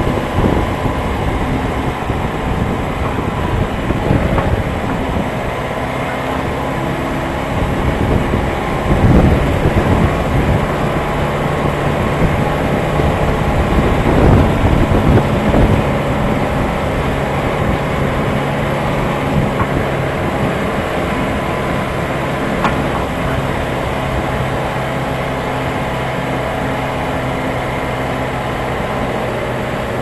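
Tractor with a front loader driving along a farm track, its engine running steadily at a low, even pitch. The loader and attachment rattle over the bumps, with a few louder knocks about a third of the way in and again near halfway.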